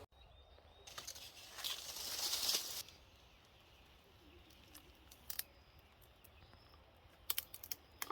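A rustling, crinkling noise for about two seconds, then a few scattered sharp clicks near the end.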